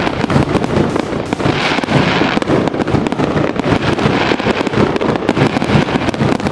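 Fireworks going off: a dense, continuous crackle of many rapid small pops and bangs.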